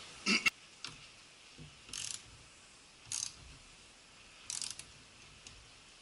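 Short metallic clicks and rattles from a car battery terminal and its nut being handled and fitted onto the battery post, six brief bursts about a second apart, the first the loudest.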